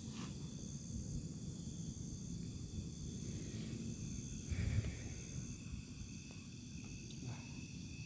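Steady high chirring of crickets and other night insects, under low rustling and handling noise, with a brief low thump a little before the middle as the caught quail is handled.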